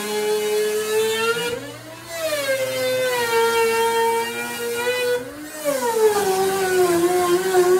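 Small trim router running at full speed and routing the plywood edge of a window opening, giving a high, steady whine. Its pitch rises briefly twice, about two and five seconds in, and then sags again as the bit bites back into the wood.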